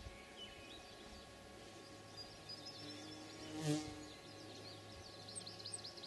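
A flying insect, a fly or bee, buzzes briefly past the microphone a little past the middle, over faint high-pitched bird chirps that turn into a quick high trill near the end.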